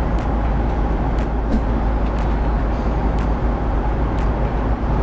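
Steady roar of an Airbus A330-200 cabin in cruise, engine and airflow noise heavy in the low end, with a few faint light clicks over it.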